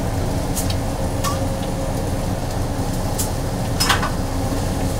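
Steady low hum of kitchen ventilation and equipment, with a few short clinks and clatters from the cooks working at the grill line, the loudest near the end.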